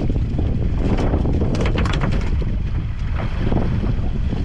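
Wind buffeting the microphone on a boat, a steady low rumble, with water slapping and splashing against the hull in short bursts around the middle.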